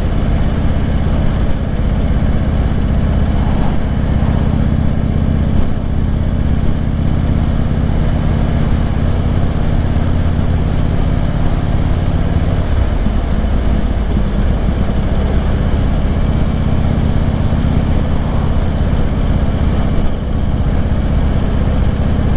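Harley-Davidson Road King's V-twin engine running steadily at road speed, with wind noise over it. About halfway through, the engine's steady note breaks up for a couple of seconds, then settles again.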